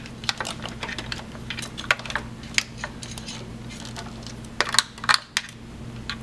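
Irregular clicks and light taps of a wiring harness and its plastic connector being handled and pushed through a car's engine bay, with a cluster of louder clicks about five seconds in, over a steady low hum.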